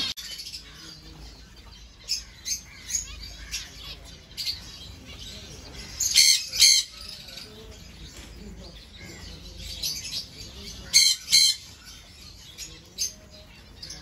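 A flock of white zebra finches in an aviary calling: scattered short, high chirps, with two louder pairs of sharp calls about six and eleven seconds in.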